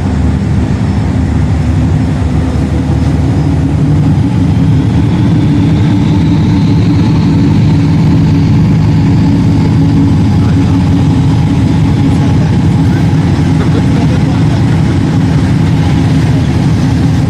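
Tugboat's diesel engines running steadily under load, pushing at about half power, with a faint rising whine in the first half.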